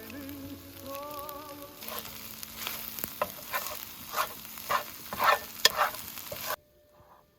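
Food frying in a pan, sizzling, with a run of scraping and stirring strokes. It is preceded by a short wavering tone and cuts off suddenly near the end.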